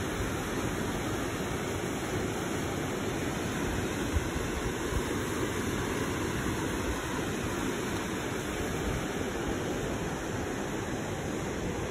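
Tokumm Creek's water rushing steadily through the narrow limestone gorge of Marble Canyon.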